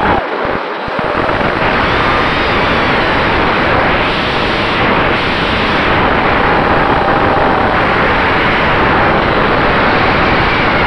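Onboard audio of a Wizard X220 FPV racing quadcopter diving and flying fast and low: a loud, steady rush of wind over the camera's microphone that builds about a second in, with a faint whine from the brushless motors beneath it.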